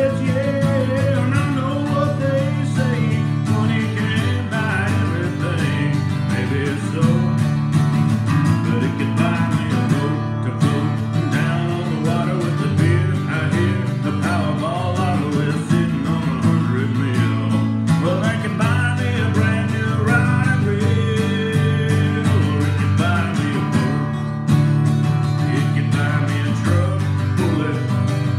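A man singing a country song while strumming a guitar, the vocal lines broken by short breaths between phrases.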